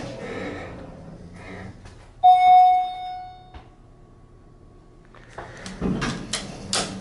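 Elevator arrival chime: a single electronic ding, one steady tone held for about a second and a half, the loudest sound here. Near the end come a few clicks and knocks from the car.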